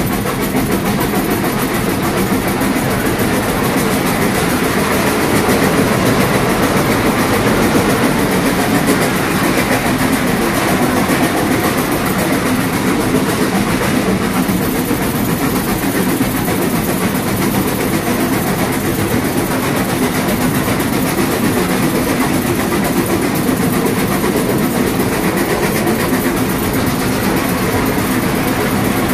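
Steam locomotive AC16 221A on the move, heard from inside its cab: a steady, loud mix of engine and running noise.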